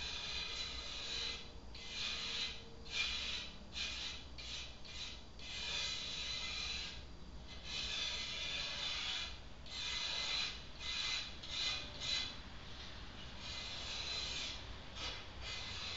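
A blade scraping baked-on gunk off a gas grill's glass panel, in repeated rasping strokes with short pauses between them.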